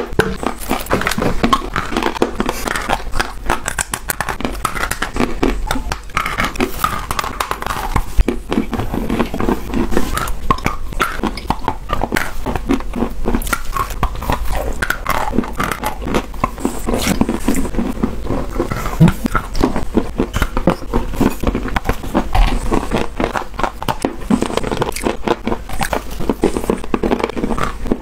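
Close-up crunching and chewing of hard, chalky mineral chunks, a dense run of crisp snaps and cracks as pieces are bitten off and ground between the teeth.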